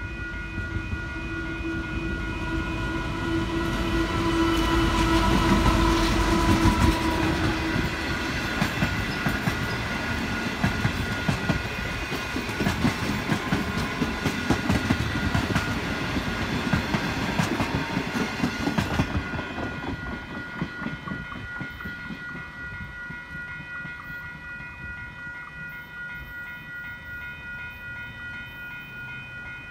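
An NR class diesel-electric locomotive hauling a passenger train passes over a level crossing. Its engine is loudest about five to seven seconds in. The carriages' wheels then clatter rhythmically over the crossing and rail joints, fading after about twenty seconds. Electronic level-crossing bells ring steadily throughout.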